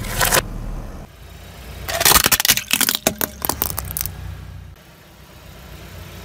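Car tyre crushing a brittle gold-foil-wrapped plastic shell: a dense run of sharp cracks and crunches lasting about two seconds, over the low rumble of the car. A short crunch comes right at the start.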